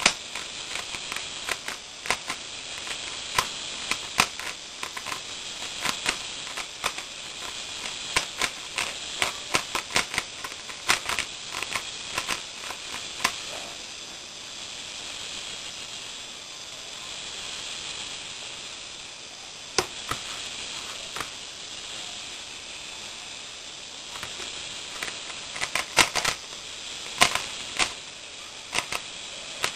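3x3x3 Rubik's cube turned fast by hand: rapid clicking of plastic layers in quick runs. There is a lull of fewer clicks in the middle, then fast turning again near the end.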